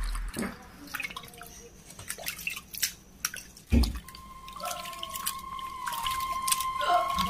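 Water dripping and splashing with small scattered knocks as crab pieces are washed by hand in a pot of water. The sharpest knock comes just before the middle. A faint steady high tone sets in about halfway through.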